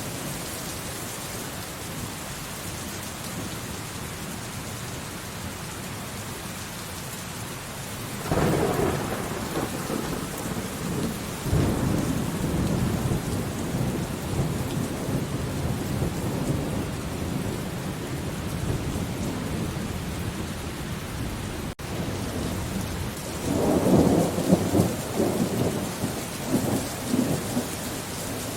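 Steady heavy rain with thunder: a roll of thunder breaks about a third of the way in, strikes again a few seconds later and rumbles on for several seconds, and a second loud roll comes near the end.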